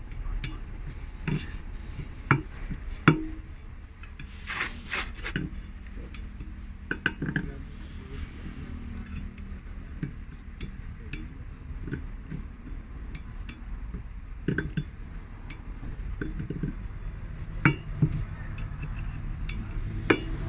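Metal tools and bus wheel parts clinking and knocking at irregular intervals as a punctured Volvo B9R bus tyre is being changed, with a scraping hiss about five seconds in and a steady low hum underneath.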